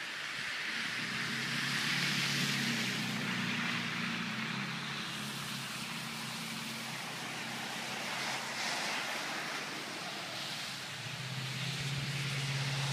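A vehicle engine running steadily under a broad hiss; the engine hum fades away about halfway through and comes back louder near the end.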